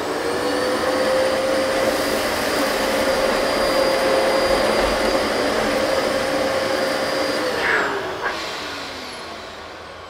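Dyson DC14 Animal upright vacuum cleaner's motor spinning up with a rising whine, then running steadily with the rush of its suction airflow over hard floor. About seven and a half seconds in it is switched off, and the whine falls in pitch and fades as the motor spins down.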